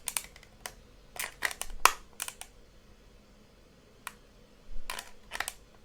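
Clicks of small buttons being pressed, a few at a time in short clusters with pauses between, as settings are stepped through on a menu.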